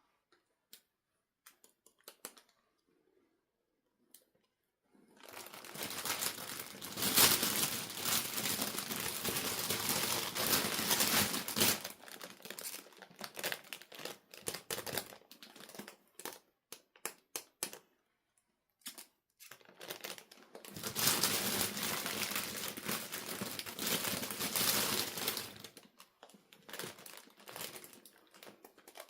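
Toy packaging being handled and crinkled in two long stretches of several seconds each, with scattered small clicks and taps in between.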